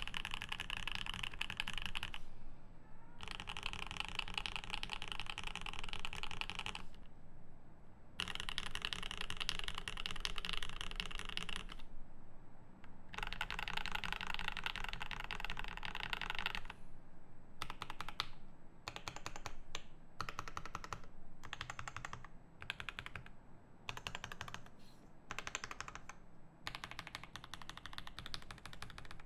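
Continuous fast typing on a Rama M65-B mechanical keyboard with a brass plate, lubed Alpaca V2 linear switches and GMK keycaps. There are four long runs of rapid keystrokes separated by short pauses. In the last ten seconds the typing breaks into many short bursts of a few keystrokes each.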